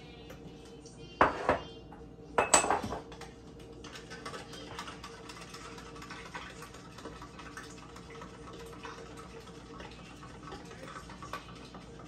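Kitchenware being handled. Two loud metallic clanks come about one and two and a half seconds in, each ringing briefly, followed by lighter, irregular clattering.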